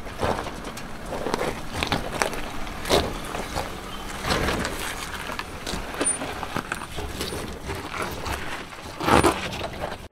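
Mercedes G-Class crawling slowly over rocks and loose gravel, its engine running low under irregular crunches and cracks of stones under the tyres. A louder crunch comes near the end.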